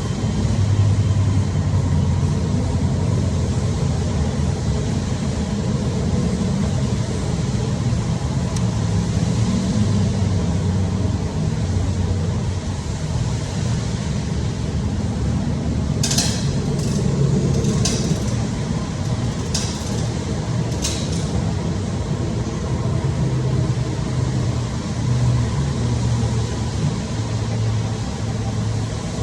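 Steady low mechanical rumble, with four or five sharp clinks a little past the middle.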